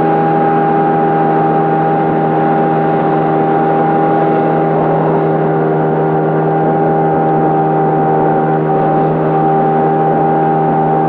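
Motorboat engine running at a steady cruising speed: a constant hum with a steady whine over it, its pitch unchanging.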